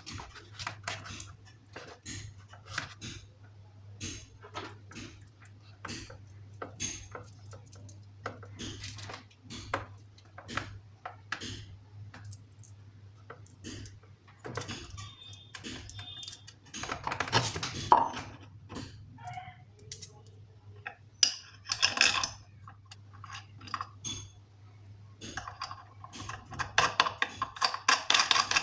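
Ceiling fan hardware being fitted by hand: metal parts and tools clinking and tapping irregularly, with busier bursts of clatter now and then, over a steady low hum.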